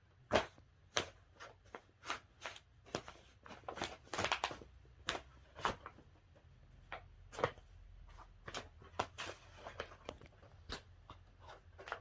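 Irregular rustling and crackling, several sharp scratches a second, as cats scrabble and play inside a bag and blanket.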